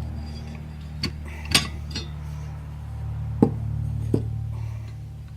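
Clutch plates clinking as they are lifted out of a 4L60E transmission's reverse input drum: about five separate sharp metallic clinks, over a steady low hum.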